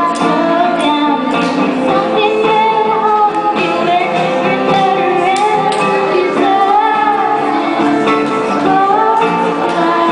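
A woman singing a pop song while strumming an acoustic guitar, with strum strokes evenly spaced under the sung melody.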